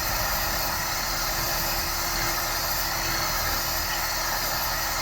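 Hot air gun running steadily: an even rushing hiss with a constant hum. It is heating a chainsaw crankcase to expand it for a press-free crank and bearing fit.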